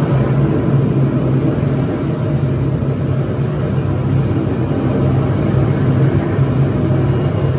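F-35B jet hovering for a vertical landing: the steady, loud roar of its F135 engine and lift fan, with a strong, even low hum underneath.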